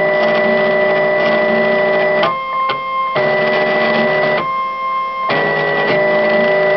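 CNC milling machine's stepper motors whining as they drive the axes: steady pitched tones over a hiss, the pitch switching abruptly several times as the moves change speed and direction.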